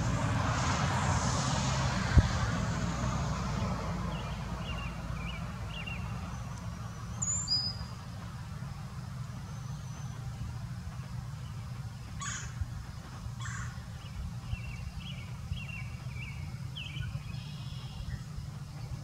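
A vehicle passing over a steady low rumble of road traffic, its hiss fading over the first few seconds. Faint short bird chirps come in small runs twice.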